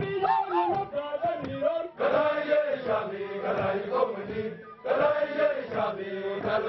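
A large group of men's voices chanting a song together, in phrases of about two to three seconds, each broken off by a short pause.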